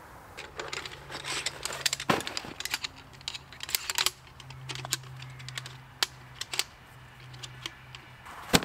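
Irregular light metal clicks and clinks as the thin rods of a folding metal tripod are handled and fitted together, with a sharper knock near the end. Under them runs a low, steady hum from a tractor engine working in a nearby field.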